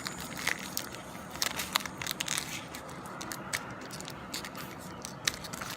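Crinkling and crackling of a foil trading-card pack wrapper being handled and opened, with irregular small crackles throughout.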